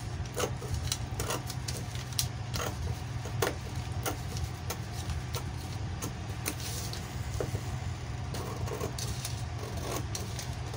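Scissors snipping through brown pattern paper in a string of irregular, sharp cuts, over a steady low hum.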